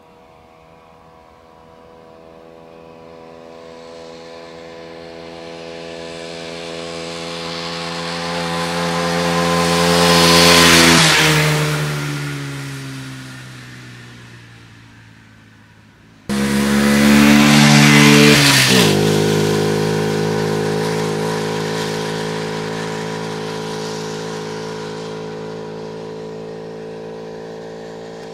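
A Barton Volcano moped's 49 cc single-cylinder four-stroke engine passes close by at speed twice. Each time the engine note grows louder, drops in pitch as the bike goes past, then fades away. The second pass cuts in abruptly, already close, about sixteen seconds in.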